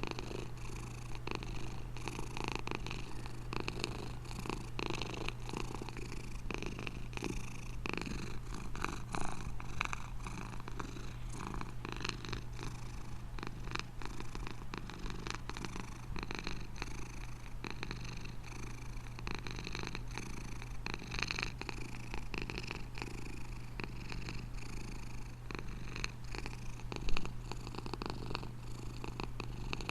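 Domestic cat purring steadily and close, a continuous low hum with a crackly texture. There is one brief louder knock near the end.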